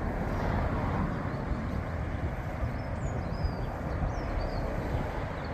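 Diesel locomotive running at a distance as it moves off with its train, a steady low rumble. Birds chirp a few times about three to four and a half seconds in.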